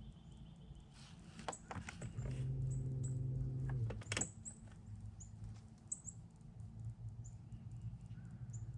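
Bass boat's electric trolling motor humming for about a second and a half, with a few sharp clicks and knocks on the boat. Short, high bird chirps repeat in the background.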